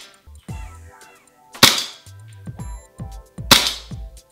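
Two shots from a ShowGun KPS gas blowback airsoft pistol, a replica of the Tokarev TT-30 running the WE system, each a sharp crack, about two seconds apart. Background music with a steady beat plays underneath.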